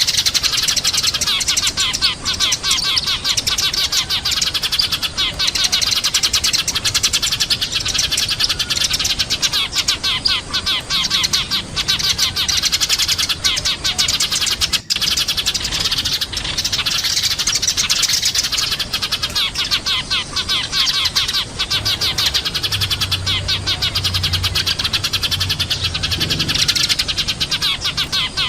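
Eurasian tree sparrows chirping in a dense, rapid chatter of overlapping chirps, with a momentary break about halfway.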